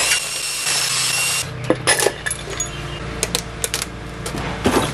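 Cordless impact wrench running for about a second and a half, spinning out a cylinder head bolt on a Ford Essex V6. Then light, irregular metallic clinks and clatter.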